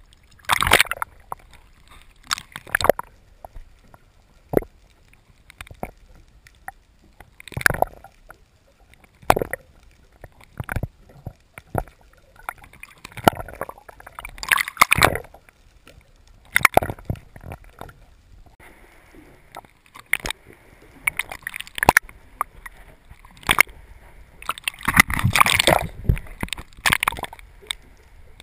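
Water sloshing and gurgling, heard muffled through a GoPro's submerged waterproof housing. Irregular knocks and splashy bursts come every second or so, with louder stretches about halfway through and near the end.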